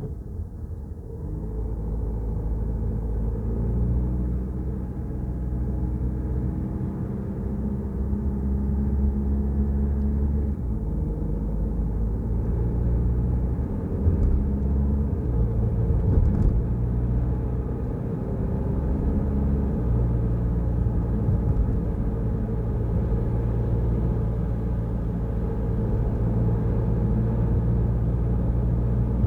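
Citroën Rifter heard from inside the cabin while driving: steady engine and road rumble whose pitch steps up and down several times as the engine speed changes. Two short knocks come a little past halfway.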